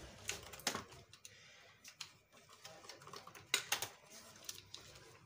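Irregular small plastic clicks and taps as wire connectors are worked loose inside the opened plastic housing of a Janome Secio sewing machine, a few sharper clicks standing out among fainter rattles.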